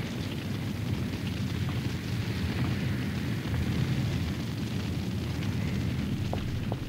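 Steady low rumble of a blazing fire, the sound effect for burning ruins after a blast. A few faint short chirps come near the end.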